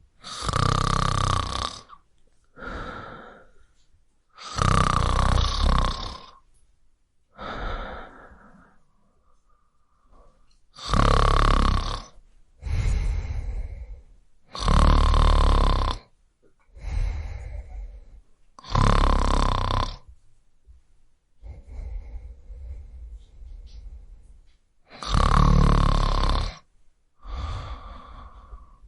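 A person snoring loudly in a repeating rhythm. Each heavy rasping snore of about a second and a half is followed by a softer, shorter one, with a quieter spell of lighter snoring a little past the middle.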